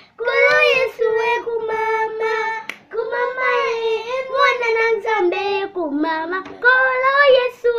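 A child singing solo, unaccompanied, in short phrases of long held notes.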